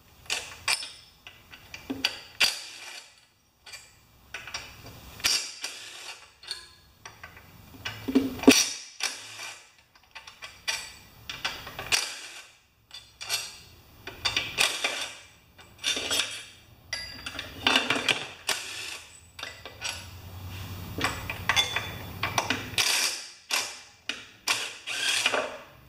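Cordless impact driver hammering loose the cylinder head bolts of a seized 4 HP Briggs & Stratton mower engine. It comes in many short rattling bursts, one bolt after another, with a steadier run of the driver for a few seconds near the end.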